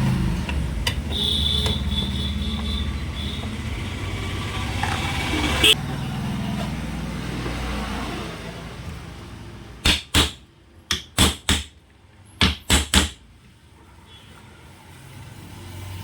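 About ten seconds in, a cluster of roughly eight sharp metallic clicks and knocks as an electric fan's housing is fitted back together and tightened after bearing repair. A steady low rumble runs underneath during the first half.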